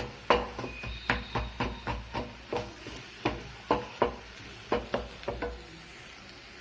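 Spoon stirring jaggery and ginger paste melting in a pan, knocking and scraping against the pan a few times a second; the strokes stop near the end.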